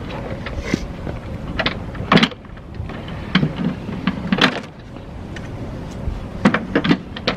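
Plastic and foam packaging being pulled and torn off a new lawnmower's handle: irregular crinkling and rustling strokes, with a short squeaky stretch about three and a half to four and a half seconds in.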